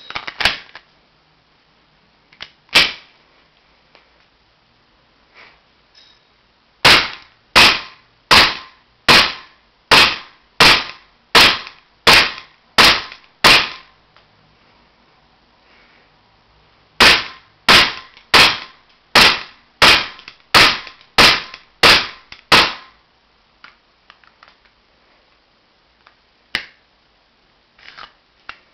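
KSC Glock 19 gas blowback airsoft pistol: a click as the magazine is seated and a louder snap soon after. It is then fired semi-automatically in two strings of about ten shots each, each a sharp crack of the slide cycling, about 0.7 s apart, with a few lighter clicks near the end.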